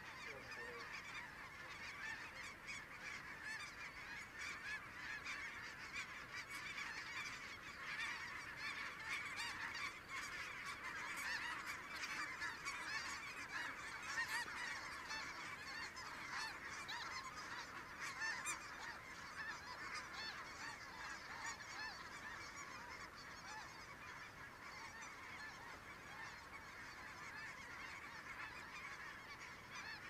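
A large flock of snow geese calling overhead: a dense, continuous chorus of many overlapping calls, swelling in the middle and easing off toward the end.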